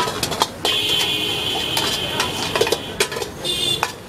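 A metal ladle clanking and scraping against an iron wok as fried rice is stir-fried and tossed, with many quick strikes over a steady frying hiss. A steady high-pitched tone sounds from about a second in until about three seconds in.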